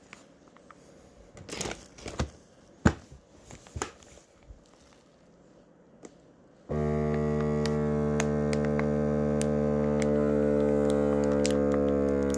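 A few faint clicks and plastic-bag rustles, then about two-thirds of the way through a vacuum sealer's pump switches on suddenly and runs with a loud, steady droning hum as it draws the air out of the bag. Its pitch shifts slightly near the end.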